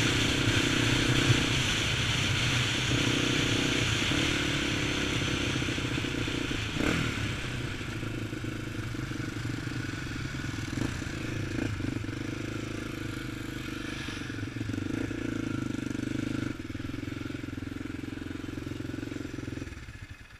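Honda TRX400EX quad's single-cylinder four-stroke engine running at a steady pitch, with a few knocks and clatters and a hiss that dies away. The engine shuts off shortly before the end.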